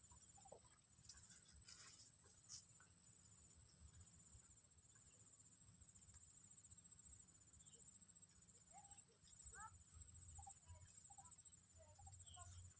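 Faint outdoor ambience: a steady high-pitched insect drone, typical of crickets, with a few short faint chirps in the second half.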